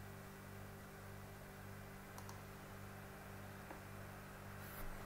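Faint computer mouse clicks: a quick double tick about two seconds in and another single tick near four seconds, over a steady low hum. There is a brief hiss just before the end.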